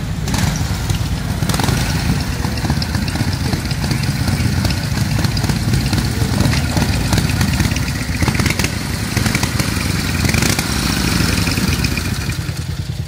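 Vintage Harley-Davidson motorcycle engine running as the bike rides in, a steady rapid beat of firing pulses that eases a little near the end as it slows.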